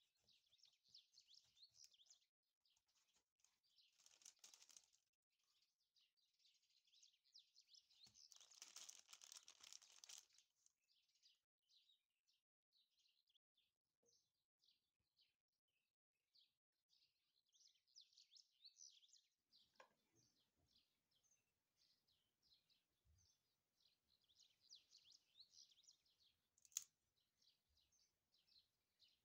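Near silence with faint, busy bird chirping throughout, two short spells of louder rustling, and a single sharp crack near the end.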